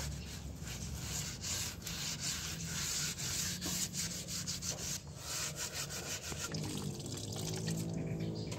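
Brush scrubbing old oil and grease off a truck's steel wheel rim in quick back-and-forth strokes, a rough rubbing scrape repeating several times a second.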